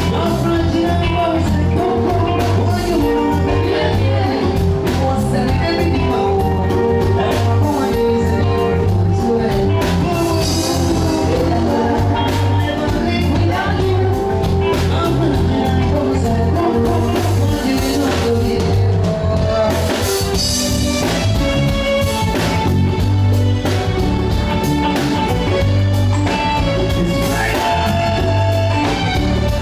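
Band music with singing over a steady, pulsing bass beat, from a live band.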